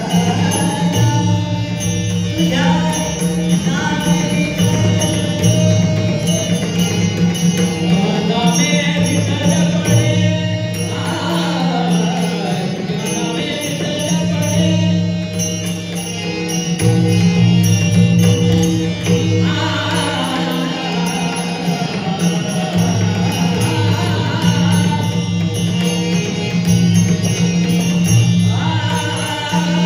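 Male voices singing a devotional bhajan, led by one singer, over a held harmonium drone, with a pakhawaj barrel drum and small hand cymbals (taal) clashing in a steady rhythm.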